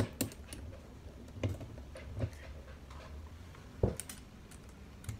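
Scattered small clicks and knocks of a phone clip being turned and locked onto the mount of a flexible bendy-leg tripod, with a heavier knock shortly before four seconds in, followed by a couple of quick clicks.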